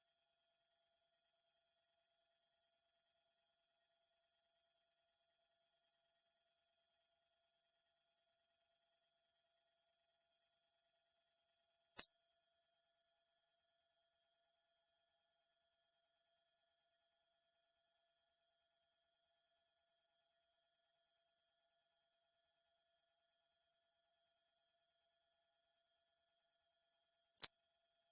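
Dog whistle sound effect: one steady, very high-pitched pure tone held without change, very loud. Two brief clicks break it, about twelve seconds in and near the end.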